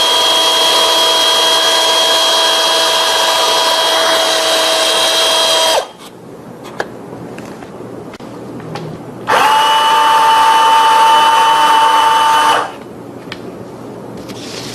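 Small electric power tool motor with forward and reverse settings, running in two bursts. It gives a steady whine that runs for about six seconds and stops. After a pause of about three seconds it runs again for about three seconds at a slightly different pitch.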